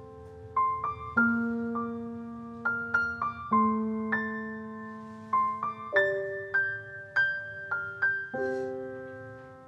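Background score: a slow, gentle solo piano piece, single melody notes struck over held chords that fade after each strike.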